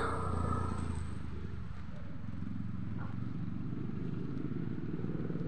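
A motorbike engine running steadily at low speed with a low, even hum, along with road noise.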